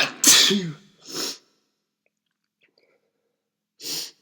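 A man sneezes once, loudly and suddenly, a voiced "achoo" falling in pitch, followed about a second later by a short breathy burst and another near the end. He puts the sneezing down to dust or pollen rather than a cold.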